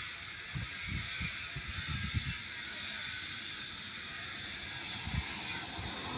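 Steady outdoor background hiss, with a few soft low thumps scattered through it.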